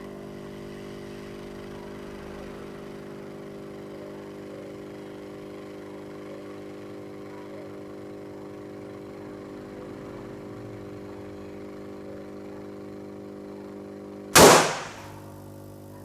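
Restored Hailea aquarium air pump running with a steady, even hum. About a second and a half before the end, a single sudden loud burst cuts across it and fades within half a second.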